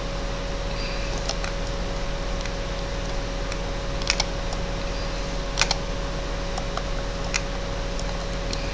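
Scattered sharp clicks of a computer keyboard and mouse, a few at a time, the loudest about four and five and a half seconds in, over a steady background hum.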